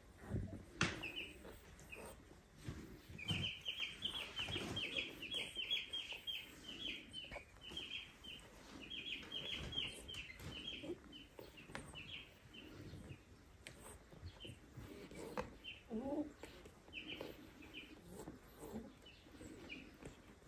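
Tiny kitten squeaking in a rapid run of short, high chirping cries, several a second. The squeaks thin out to scattered ones near the end, over soft rustling of fur as the big cat grooms it.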